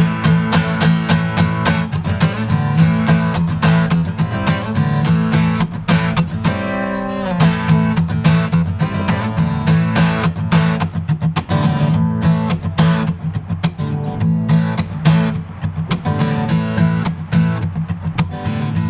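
Acoustic guitar strummed in a steady rhythm, an instrumental break in a country-style song with no singing.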